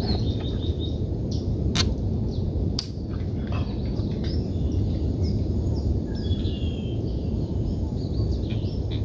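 Birds calling in the mangroves with many short, falling chirps, over a steady low rumble. Two sharp clicks come about two and three seconds in.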